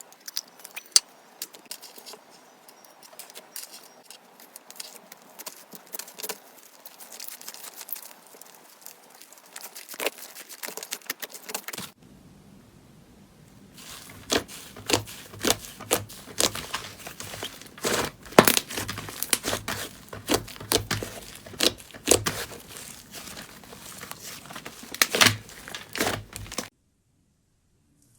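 Slime being squeezed and worked by hand, making a run of crackling clicks and pops. The clicks are faint and sparse at first, then louder and denser from about twelve seconds in, and stop a second or so before the end.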